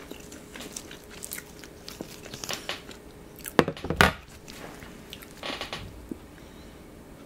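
Crisp crunching of a croffle (croissant-dough waffle) being bitten and chewed: scattered crackles, with two loud crunches about three and a half and four seconds in and another brief cluster near six seconds.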